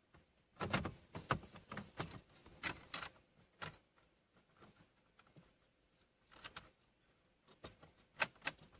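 Light clicks and taps of plastic dashboard trim and small screws handled by hand as a car's climate control panel surround is fitted back in place. They come in a quick cluster over the first few seconds, then a few more near the end.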